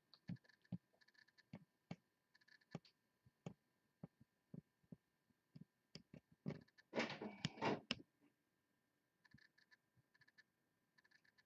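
Near silence: room tone with faint scattered ticks and a brief soft rustle about seven seconds in.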